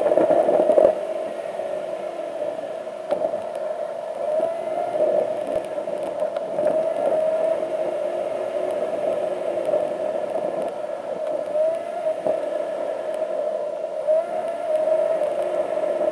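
Steady whirring vehicle noise, as heard from a car on the road, with small rises and falls in pitch.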